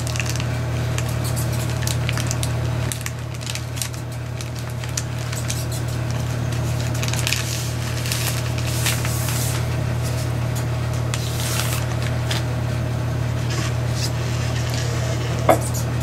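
Plastic bag crinkling and rustling on the splined end of an axle shaft as it slides through an oil seal into the axle tube, with light metallic clinks, over a steady low hum. A sharp knock near the end.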